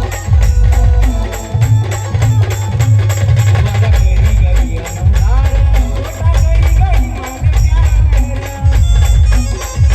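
A live band plays an instrumental passage, loud, over a heavy booming bass-drum beat and fast jingling percussion. A melody line bends in pitch above the beat.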